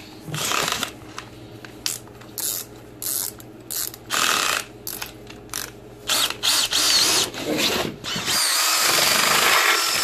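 Hand drill driving a paddle mixer through dry sand and clay in a plastic bucket, green sand being mixed. It is run in several short bursts with a rising motor whine, then runs continuously from about eight seconds in.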